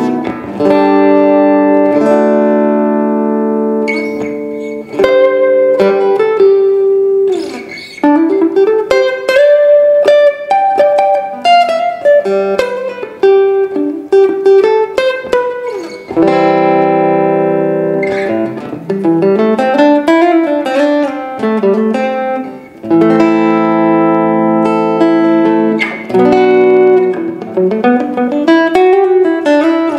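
Donner Hush I silent travel guitar played through its pickup: ringing chords alternating with single-note melody lines, some notes bending up and down in pitch.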